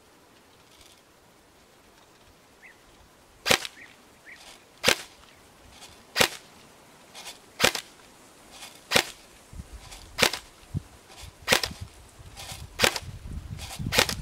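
Airsoft carbine firing single shots: nine sharp cracks, evenly spaced a little over a second apart, beginning a few seconds in.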